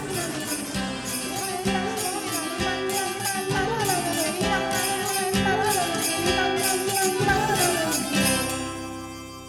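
Cartoon soundtrack music: a wavering melody over a steady beat, fading out over the last second or so.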